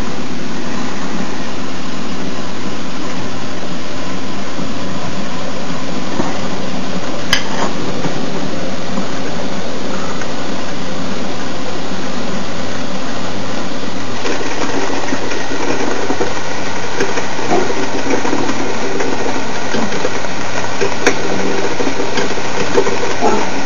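Gaggia New Espresso Color espresso machine running in steam mode, giving a steady buzzing hum over a hiss, with a few sharp clicks. Steam and water are leaking out through the group head's shower screen instead of going only to the steam wand, which is the fault.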